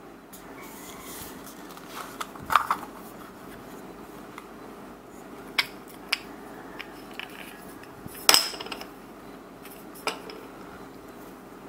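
Hard plastic toy egg capsule being pulled open and handled: a sharp plastic snap about two and a half seconds in, then scattered clicks and clacks of the plastic halves and a small toy figure. Another loud clack comes just past the middle.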